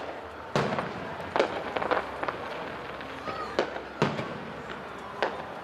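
Aerial fireworks shells bursting: a string of sharp bangs, about seven in a few seconds, the loudest about half a second in and again about four seconds in.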